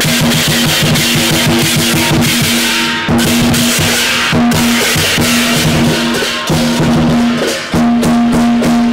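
Background music: a rock-style track with a drum kit beating steadily under repeated held low notes.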